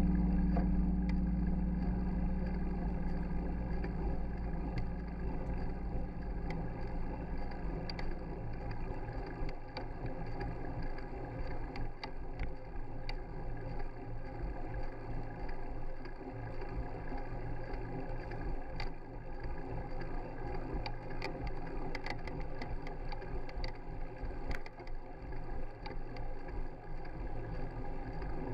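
Handbike rolling along a paved street, heard through the bike-mounted camera: a steady rumble of tyres and wind with scattered light clicks and rattles. A low hum fades away over the first several seconds.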